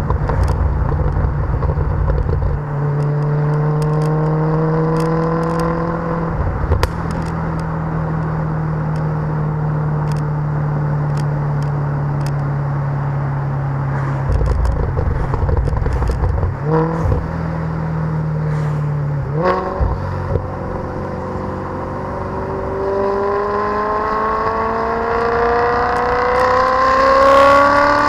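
Maserati Quattroporte V8 with a Larini aftermarket exhaust, accelerating through the gears: the engine note climbs, drops at a shift, holds steady, jumps up sharply on a downshift blip about two-thirds of the way in, then climbs in one long pull to the end. Scattered sharp exhaust crackles run through it.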